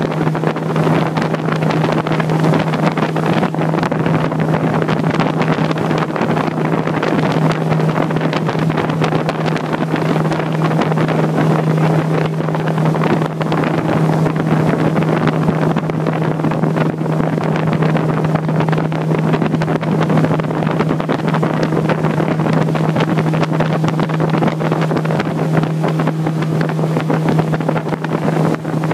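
Motorboat engine running at a steady, unchanging drone while the boat is under way, with wind buffeting the microphone over it.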